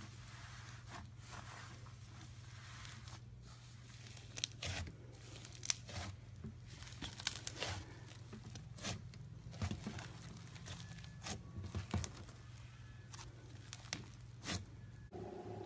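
Floam, slime packed with tiny foam beads, being squeezed and pressed by hand, giving irregular crackling pops over a faint low hum. Just before the end the crackling stops and a different steady tone takes over.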